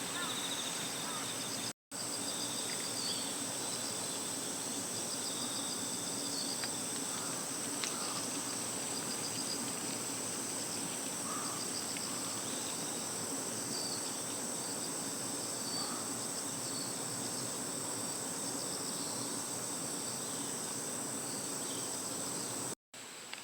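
Insects shrilling in a steady, high, continuous drone, with rapid pulsing trills from other insects in the first few seconds and again midway. The sound drops out to silence for a moment twice, about two seconds in and near the end.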